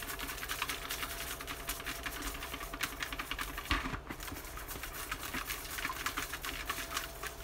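Name slips rattling and rustling inside a plastic bucket as it is shaken and stirred by hand: a rapid, uneven patter of small clicks, with one duller knock a little under four seconds in.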